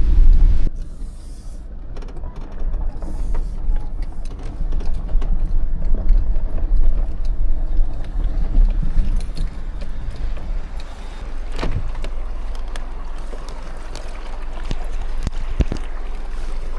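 Car driving slowly over rough ground: a steady low rumble of engine and tyres, with a few sharp knocks and clunks.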